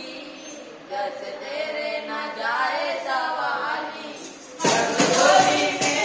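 Boys' voices singing a qawwali line unaccompanied; about four and a half seconds in, the group comes in louder with a sharp rhythmic percussive beat under the singing.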